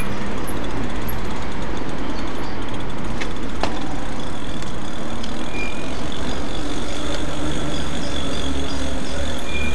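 Steady rush of riding noise from an e-bike in motion: wind on the microphone and tyres rolling on a paved path. A couple of sharp clicks come about three seconds in, and a thin high whine joins about halfway through.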